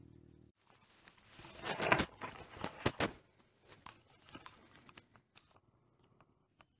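Crackling, rustling handling noise with several sharp clicks, loudest about two to three seconds in, then a few faint scattered clicks.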